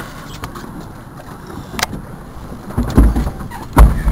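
Clothing rubbing against the camera's microphone: low rustling, then heavy low thuds about three seconds in and again near the end.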